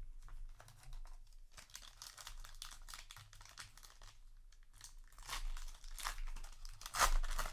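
Foil trading-card booster pack wrapper crinkling and tearing as it is handled, in irregular crackles that grow busier and are loudest near the end.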